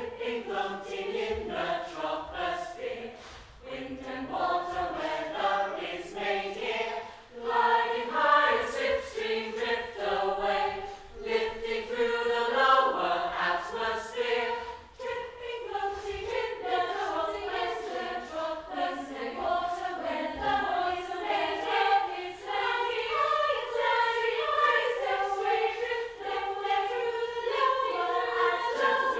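A choir singing a cappella, several voice parts layered in shifting harmony over a steady held note.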